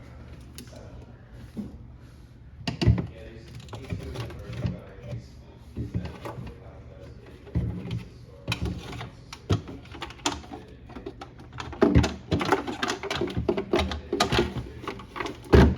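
Clicks, knocks and rattles of parts being handled and fitted as a bracket goes into a refrigerator's ice-dispenser assembly. They are scattered at first, then come in a dense run of quick clicks through the last several seconds.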